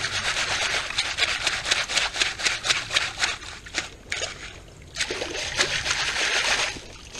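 A wooden-framed screen sifter loaded with creek gravel shaken back and forth in shallow stream water: rhythmic sloshing and splashing, about five strokes a second, washing the gravel to sift it for fossils. The shaking eases for about a second past halfway, then starts again.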